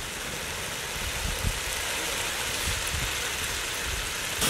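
Soft, steady sizzling hiss of an onion-tomato masala cooking in a large aluminium pot, with a few faint knocks.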